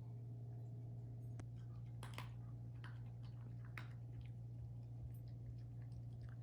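A steady low hum with a few soft, scattered clicks.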